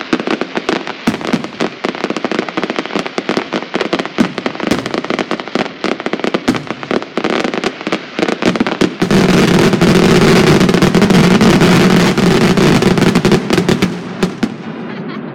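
Fireworks display: a rapid string of firework bangs and crackles. About nine seconds in they merge into a louder, unbroken barrage for several seconds, then ease off near the end.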